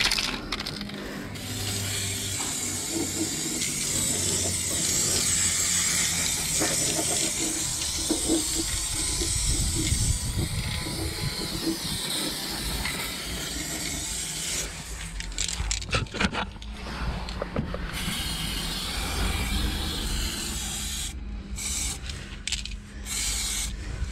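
Aerosol spray can of black paint hissing, in one long unbroken spray for most of the first half, then in shorter bursts with breaks in the second half.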